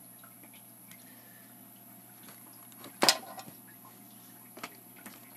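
A single sharp click about three seconds in, with a few faint ticks before and after it. The sounds come from handling the opened Cobra 148 CB radio and its parts.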